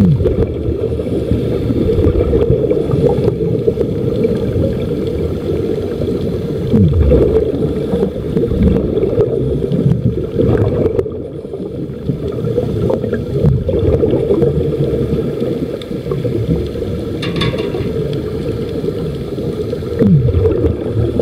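Muffled underwater sound: a steady, dull low rumble with gurgling, and a few short falling tones.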